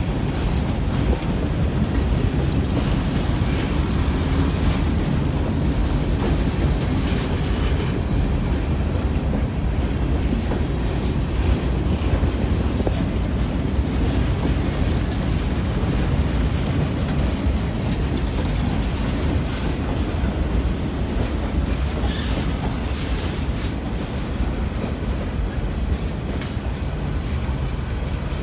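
Freight train's boxcars rolling past at close range: a steady rumble of steel wheels on the rails, with scattered clicks.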